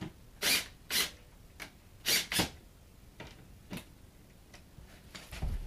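Handling noise from a cordless drill/driver: four short scraping noises in two pairs, a few light clicks, and a dull thump near the end, with no motor running.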